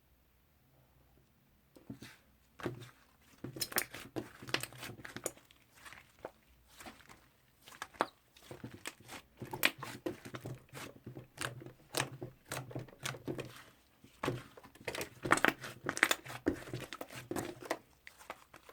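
Toffee slime being squished and stretched by hand, giving irregular sticky clicks and crackles that start about two seconds in.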